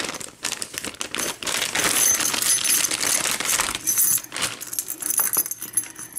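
Loose metal keys jingling and clinking against each other while a key is picked out of a bunch, a dense run of small metallic clicks with a high ringing.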